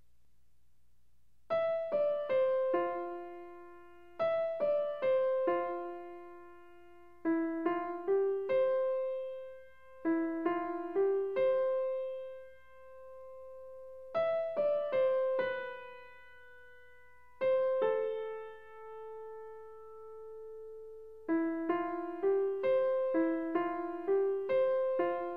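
Background piano music: a gentle melody played in short phrases of a few notes each, with a long held note about two-thirds of the way through.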